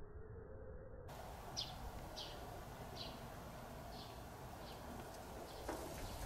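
A small bird calling: short, high notes repeated about once every half second to second, growing fainter, over a faint outdoor background.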